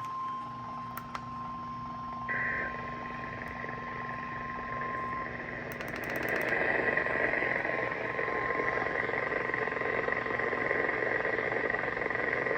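NOAA Weather Radio warning alarm tone, a steady 1050 Hz beep sounded ahead of a blizzard warning, heard over a weather-radio receiver with poor reception. A static hiss comes up about two seconds in and grows louder at about six seconds, while the tone fades under it.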